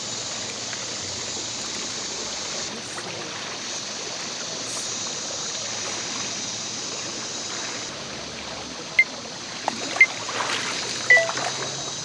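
Steady rush of running water, with three sharp clicks about a second apart near the end.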